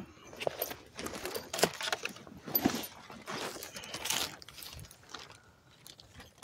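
Irregular rustling, clicking and small rattles as the rider shifts on the bike under a plastic tarp roof, with the phone handled close to the mic.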